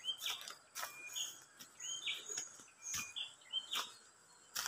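Footsteps crunching on dry leaf litter while walking, one step every half second or so, the sharpest near the end. Birds chirping repeatedly in the background.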